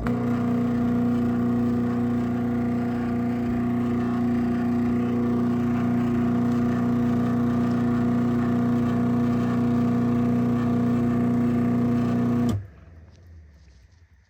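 Craftsman 139.53930DM half-horsepower chain-drive garage door opener running as it opens the door: a steady motor hum with an even rhythmic chain rattle, stopping abruptly about twelve and a half seconds in at the end of travel.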